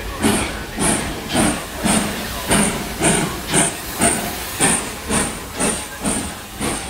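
FS Gr 625 steam locomotive pulling away with its train, its exhaust chuffing in a steady rhythm of about two beats a second, each chuff a sharp burst of steam hiss.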